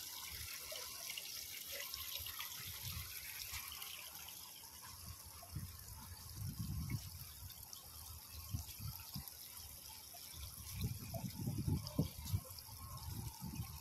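Water trickling and splashing from a stone shell-shaped fountain spout into a shallow channel, a faint steady sound. Low rumbles come in about six seconds in and again near the end.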